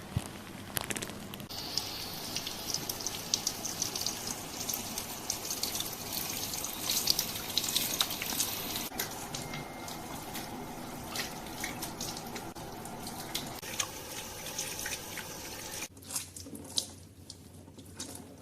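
Water running from a tap at a shampoo basin and splashing as hair is rinsed, with many small crackles and drips. The flow drops away about sixteen seconds in.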